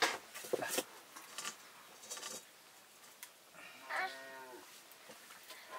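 A sheep bleats once, a single call of about a second a few seconds in, after some light knocks and rustling.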